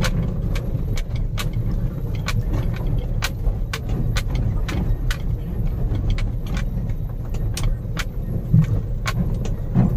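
Bolero pickup driving, heard from inside the cab: a steady low engine and road rumble with frequent sharp, irregular clicks and rattles from loose parts or items jolting about.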